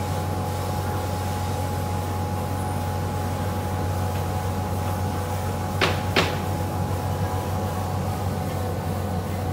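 Dual-head laser cutting machine running as it cuts fringe into swimsuit fabric: a steady low mechanical hum with a thin steady tone over it. Two sharp clicks a fraction of a second apart about six seconds in.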